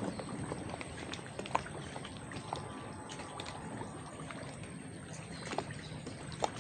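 Small waves lapping and sloshing at the water's edge, a steady wash with scattered faint clicks.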